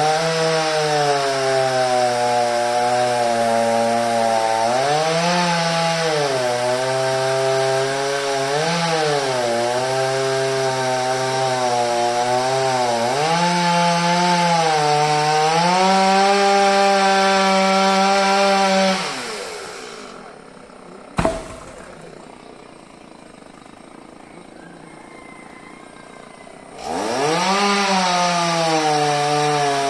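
Chainsaw running at high speed, its pitch dipping and recovering as it works through wood. About 19 seconds in it drops back to a low idle, a single sharp knock sounds soon after, and near the end it revs up again.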